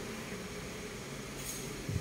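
Steady low mechanical rumble, with a short hiss about one and a half seconds in.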